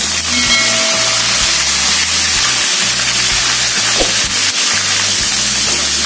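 Two whole tilapia deep-frying in oil in a wok, the oil sizzling steadily, under background music with a repeating bass line.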